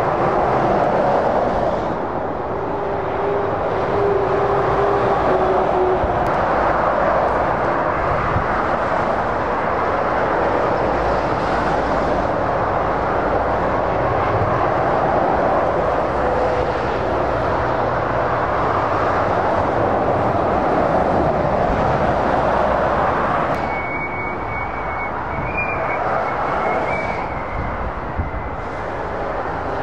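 Motorway traffic of heavy lorries and cars passing at speed: a steady rush of tyre and engine noise that swells as each truck goes by and eases a little near the end.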